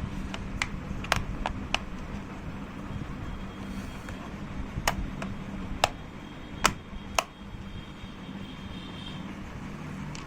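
Sharp clicks and taps, about nine in all, as the laptop's plastic bottom cover is handled and fitted back on, over a steady low background rumble.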